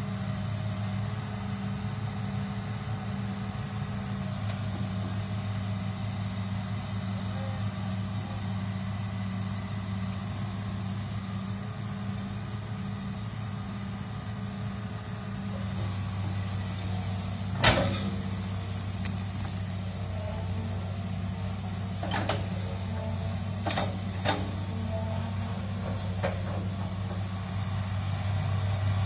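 Hydraulic excavator's diesel engine running steadily under working load while digging a ditch, growing a little louder past the middle and again near the end. One sharp knock about two-thirds of the way in, then a few lighter knocks.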